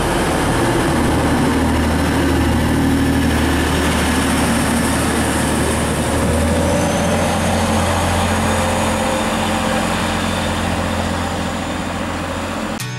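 TransPennine Express diesel multiple unit pulling out of the platform, its underfloor diesel engines running under power with a steady low drone. The engine note shifts about six or seven seconds in, and a faint high whine comes in from then on.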